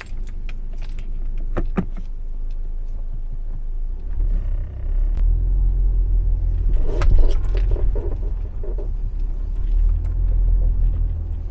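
A 2015 Audi A4's suspension creaking and squeaking over a low rumble. The mechanic likens the noise to rubber bushings rubbing, which he later puts down to the control-arm bushings, and says it comes from both sides.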